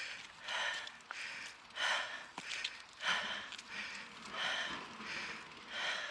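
A mountain biker breathing heavily and fast, out of breath from hard climbing: loud breaths in and out in a steady rhythm, a little over one a second.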